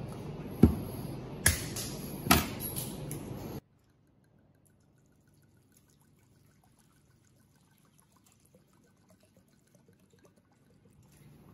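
Three sharp clicks over a steady room hiss as the cap and seal of a bottle of liquor are worked open by hand, then an abrupt drop to near silence.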